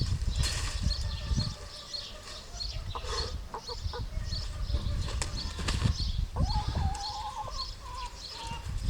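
Hen flapping its wings and struggling, with short clucks about three seconds in and a drawn-out wavering squawk about six seconds in.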